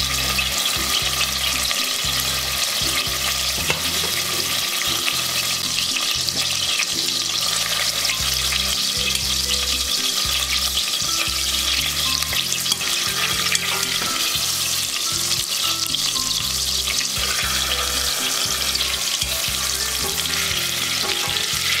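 Pork loin browning in melted butter in a stainless steel pot, sizzling steadily, while a wooden spoon turns and moves the meat in the pan.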